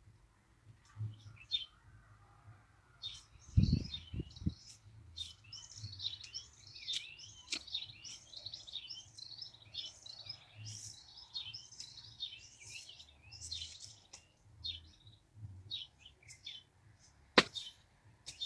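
Small birds chirping and twittering almost without pause. A few dull thuds come about four seconds in, and a sharp knock near the end, from a hand hoe working the soil.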